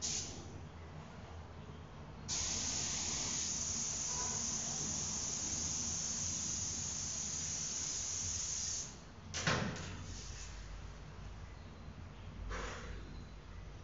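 A spray hissing steadily for about six seconds, then cutting off. A short, sharp spray-like burst follows, and a softer one near the end.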